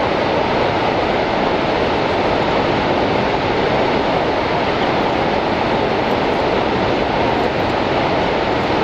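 The American Falls at Niagara: a heavy, unbroken rush of falling water, steady throughout and strongest in the low middle range.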